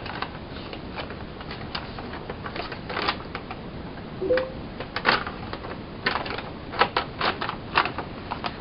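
Headphone box and its packaging being handled: irregular clicks, taps and light rustles of cardboard and plastic, coming more often toward the end.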